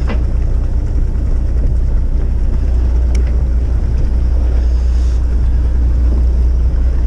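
A fishing boat's engine running under way, a steady low drone with the rush of wind and water over it.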